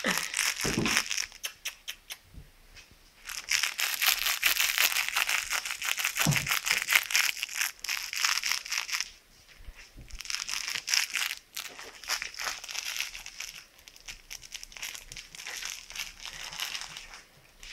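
Rustling, crinkling noise in bursts of a few seconds each, made of many small crackles, with short lulls between the bursts.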